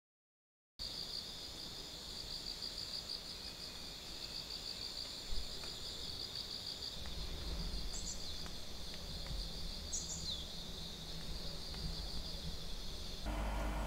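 Evening chorus of insects such as crickets, a steady high pulsing chirr, with a couple of short bird chirps about eight and ten seconds in. It starts about a second in and gives way to a low hum near the end.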